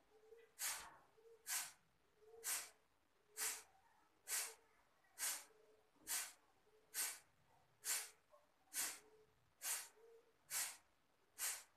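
Kapalbhati breathing: short, forceful exhalations puffed through the nose at a steady rhythm of about one a second, thirteen strokes in all, with the inhalations passive and nearly silent between them.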